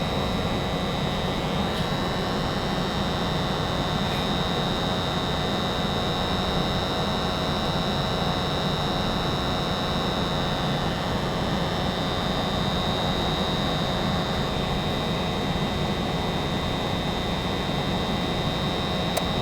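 90% American Standard gas furnace running with its burner firing and blower on: a steady rushing hum with a constant high-pitched whine over it.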